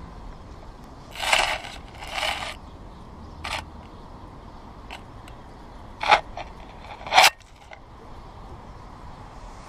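Eastern gray squirrel digging and scratching in crusty snow close to the microphone: a series of short scraping, crunching bursts. The first two are longer, and sharper ones come around six and seven seconds in.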